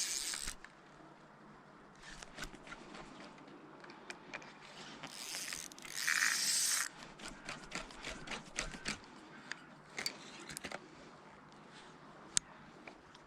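Spinning fishing tackle being worked: line hisses off the spool twice, the second time longer, about five to seven seconds in. Between these come many short clicks and scrapes from the reel as the lure is retrieved.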